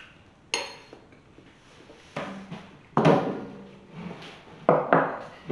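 A person groaning through a mouthful of food he finds revolting while forcing it down. There is a sharp click about half a second in, then three or four short, muffled groans.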